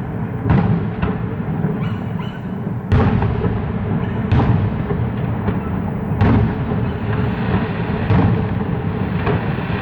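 Fireworks going off: a string of booms every second or two, the heaviest about three seconds in and again near six seconds, over a continuous rumble and crackle of further bursts.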